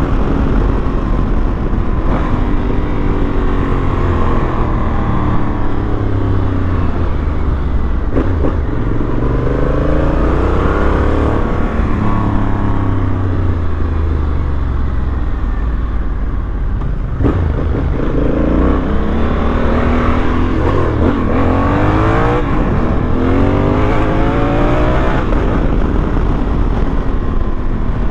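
Honda Africa Twin's parallel-twin engine running on the move, pulling up in pitch and dropping back at each gear change, in two spells of acceleration, one early on and one from about two-thirds of the way in. Steady wind and road noise run underneath.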